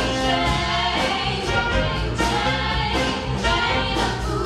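Music with singing: held sung notes over a steady bass line.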